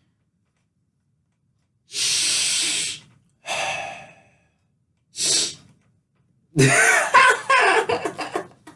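A man sniffing hard through the nose, as if snorting a line of powder: one long sniff about two seconds in, then two shorter ones. Breathy, gasping voice sounds follow near the end.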